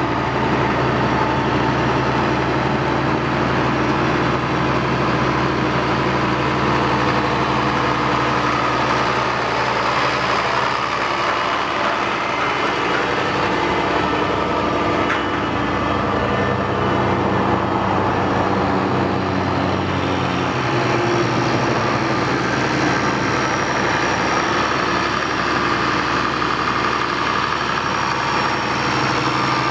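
International 1086 tractor's turbocharged six-cylinder diesel engine running steadily as the tractor drives slowly, its note shifting a little partway through.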